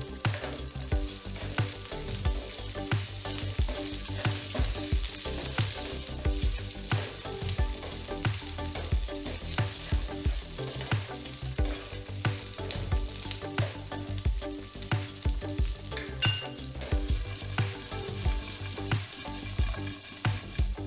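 Wooden spatula stirring and scraping boiled potato pieces, peanuts and spices around a non-stick frying pan, with hot oil sizzling under the strokes. The spatula's knocks and scrapes repeat irregularly.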